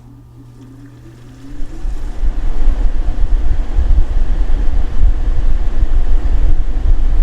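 Air conditioner starting up: a low hum with a faint rising whine, then about two seconds in the fan comes on with a loud, steady rush of air and rumble.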